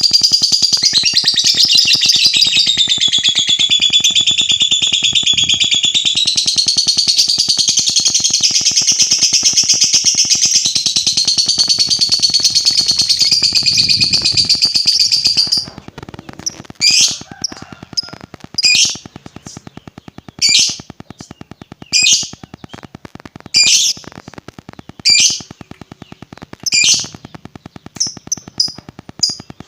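Lovebird ngekek: a long, unbroken, rapid chattering trill for about the first fifteen seconds, then short sharp chirps repeating roughly every second and a half.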